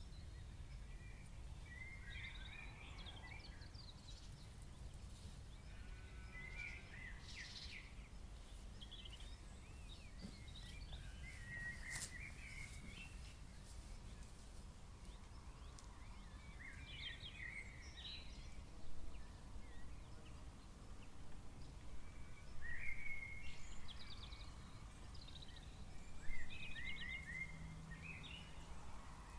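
Night birds calling: short chirping, trilled phrases every few seconds, over a steady low background rumble.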